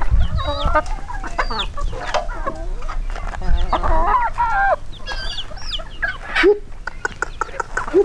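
A flock of free-range chickens clucking and squawking, many short calls overlapping, gathered in answer to the farmer's call.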